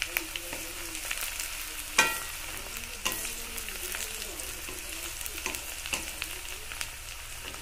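Sliced onions and green chillies sizzling in hot oil in a steel kadai, stirred with a wooden spatula that scrapes and taps against the pan. There is a sharper tap about two seconds in.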